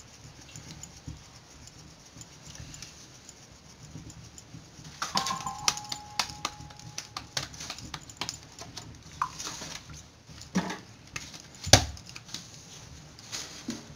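Wet hands patting, slapping and pressing a ball of maize dough into shape, making irregular soft pats and sharp clicks after a quieter start. A brief ringing clink of glass bangles or the steel bowl comes about five seconds in, and the loudest sharp slap comes near the end.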